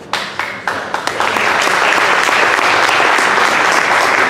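Audience applauding: a few separate claps at first, swelling within about a second into full, steady applause.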